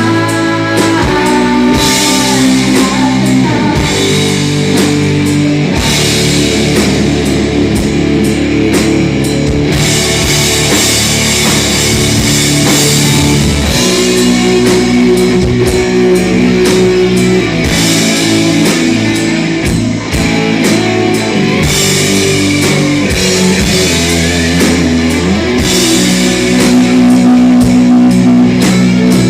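A rock band playing live: distorted electric guitar chords over a drum kit, loud and continuous.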